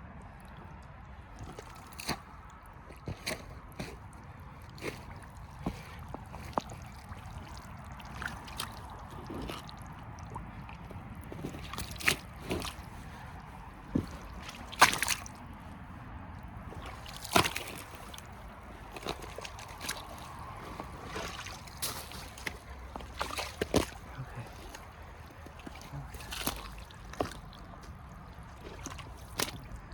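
Muck Arctic rubber boots squelching and sloshing through wet peat-bog mud and water, in irregular steps and splashes every second or two.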